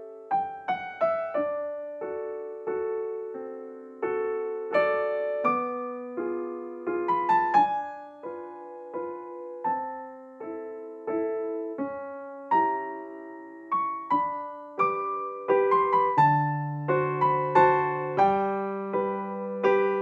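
Background music: a slow, gentle piano piece, single notes and chords struck and left to ring.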